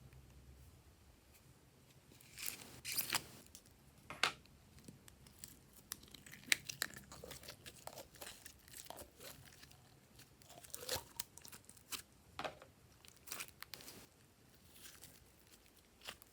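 Glossy slime being pressed and stretched by hand, making irregular sticky crackles and pops that begin about two seconds in.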